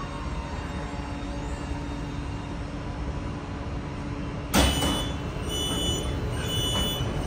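Beijing Subway Line 7 electric train rumbling slowly along the platform as it comes to a halt. About four and a half seconds in, a sudden loud hiss of air from the brakes marks the stop, followed by short, repeated high-pitched tones.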